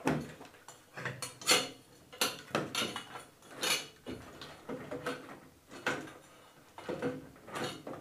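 Plastic ceiling-fan receiver box and its wires being pushed and fiddled up into the ceiling mount by hand: irregular plastic clicks, knocks and rustles.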